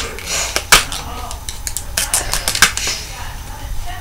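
A string of sharp, irregular clicks and taps, about a dozen, some louder than others.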